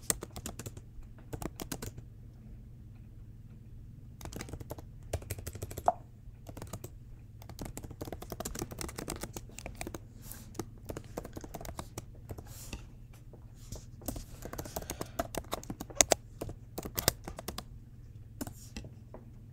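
Typing on a computer keyboard: irregular runs of key clicks with short pauses between them, a few keystrokes sharper than the rest, over a faint steady low hum.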